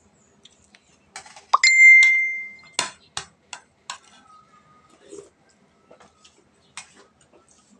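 Spoons and forks clinking against ceramic plates and a bowl during a meal. One strike about a second and a half in rings out clearly for about a second, followed by several sharper clicks of cutlery on the dishes.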